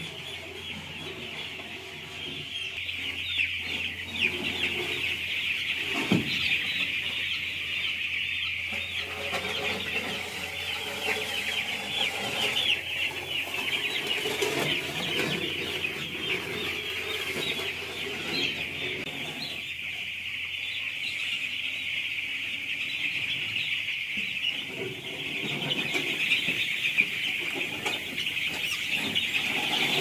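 A flock of broiler chicks peeping non-stop in a dense, high chorus of countless overlapping calls. Underneath, a rake scrapes through the dry litter at intervals.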